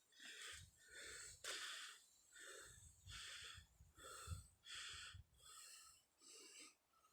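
A person breathing hard and fast through the mouth, out of breath from exertion: about nine short, hissy breaths in a steady rhythm.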